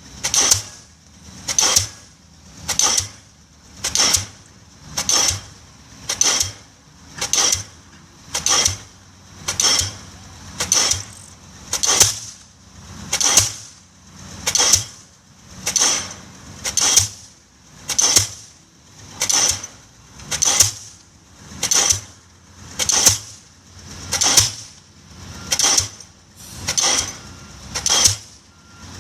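Diesel pile hammer driving a concrete pile: a steady run of regular blows, a little faster than one a second, each strike sharp and loud.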